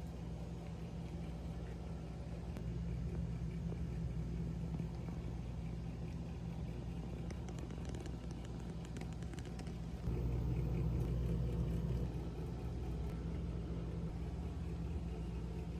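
A steady low hum that gets louder about ten seconds in, with a few faint ticks.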